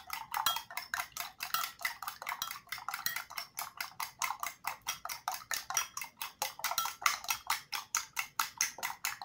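Eggs being beaten by hand with a utensil in a ceramic bowl: a quick, even clinking of the utensil against the bowl's side, about six strokes a second.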